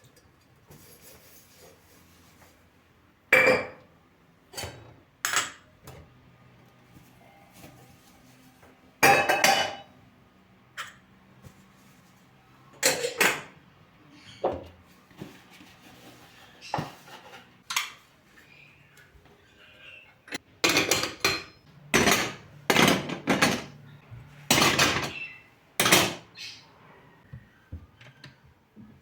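Kitchen dishes and utensils knocking and clinking: a string of separate clatters, then a busier run of clattering about twenty seconds in.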